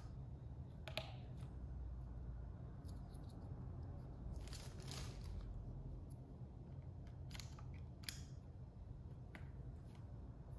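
Plastic keycaps being handled on a mechanical keyboard: a few sharp clicks and a longer scrape about four to five seconds in, as the caps are pressed onto and worked off the tight-fitting switch stems.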